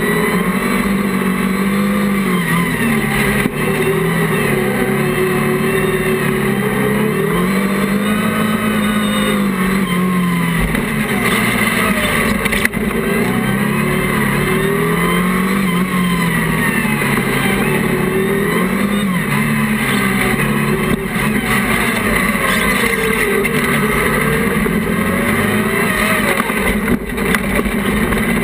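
Class 1 off-road race buggy's engine heard from on board, revving up and dropping back again and again as the car accelerates out of and brakes into corners.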